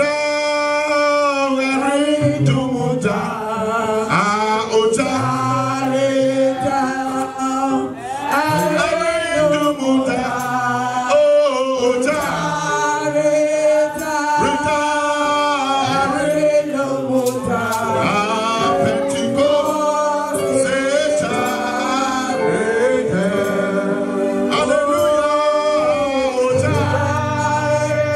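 Gospel worship music: a man's voice singing over instrumental backing, with steady low bass notes.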